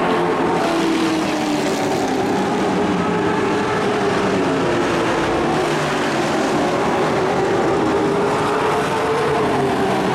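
Several dirt-track racing truck engines running hard at speed, continuous and loud. Their pitches rise and fall as the trucks pass.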